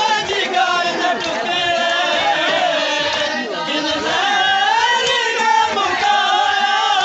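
Men chanting a noha, a Shia mourning lament: a lead reciter's voice with the group of mourners chanting along.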